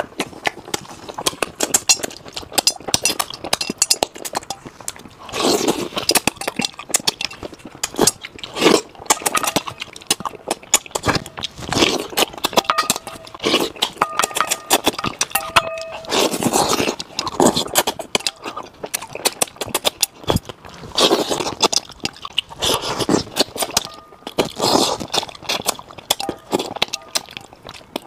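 Close-miked eating of braised fish: irregular wet chewing and sucking noises from the mouth, with clicks of wooden chopsticks against a metal bowl.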